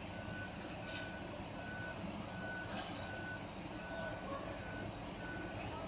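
Dump truck's reversing alarm beeping about once every three-quarters of a second, one high steady tone, over the low running of diesel engines.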